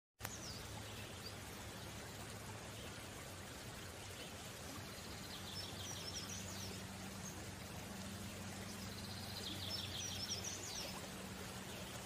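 Rufous-backed dwarf kingfisher giving high, thin calls in two short series of rapid notes, about five and nine seconds in, over a steady background hiss and a low hum.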